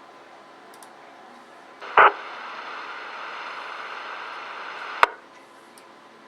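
Uniden scanner receiving a brief empty transmission with no voice: a loud burst of static as the squelch opens about two seconds in, about three seconds of steady hiss, then a sharp click as it closes.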